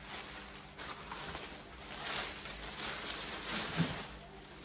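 Rustling and handling of grocery packaging in swells, with a soft knock a little before the end.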